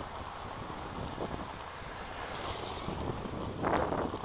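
Steady wind and road noise from riding a bicycle along a paved road, with a short louder rush near the end.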